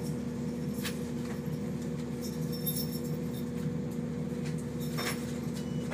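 Diesel train heard from inside the carriage as it moves along the platform: a steady low engine drone and rumble, with a couple of faint clicks.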